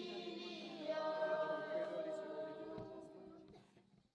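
A choir of voices singing long held notes in harmony, fading out about three and a half seconds in.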